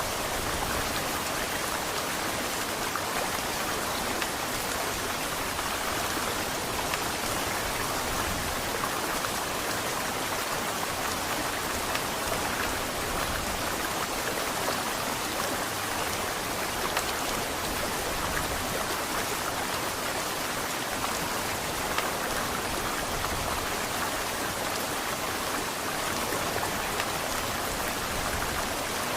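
Heavy rain falling steadily: an even hiss of countless drops, with a few slightly louder drop hits now and then.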